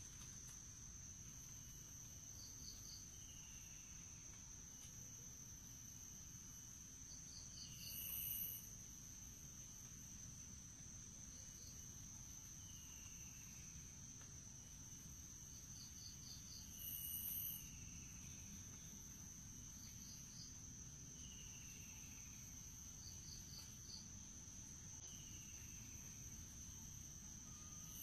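Steady high-pitched insect drone of tropical forest ambience, with faint short descending bird whistles every few seconds. A brief, louder high-pitched call comes about every nine seconds, three times.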